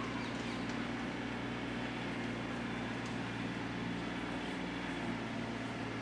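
A steady low mechanical hum at an unchanging pitch, over a faint even background hiss.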